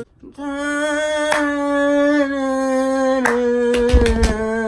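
A boy's voice singing one long held note that steps down slightly in pitch about three seconds in. There are a few sharp clicks, and a low bump comes near four seconds.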